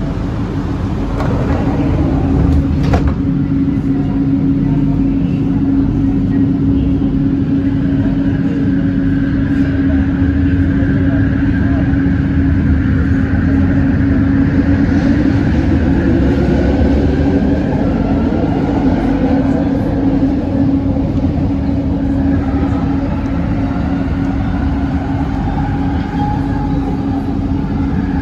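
Bombardier Innovia ART 200 metro train running, heard on board: a steady low hum with a higher whine that comes in about eight seconds in, fades a few seconds before halfway through the back half, then returns.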